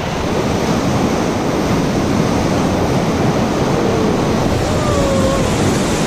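Loud, steady rushing roar of white water in a river rapid, heard close up from an inflatable raft running through it.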